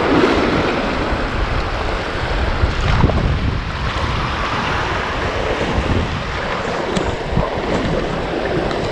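Small waves breaking and washing through shallow surf, with wind rumbling on the microphone.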